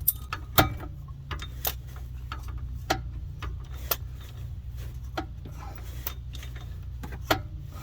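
Scattered sharp metallic clicks, roughly one a second and uneven, from a hand wrench working bolts, over a steady low hum.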